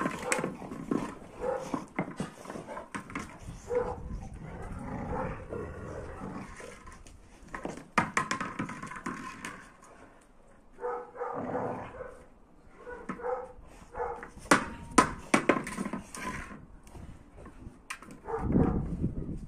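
Dogs barking and whining in short calls as they tussle over a red ball toy. Sharp knocks come in between, loudest in a cluster in the second half, from the ball being pushed and bitten on concrete.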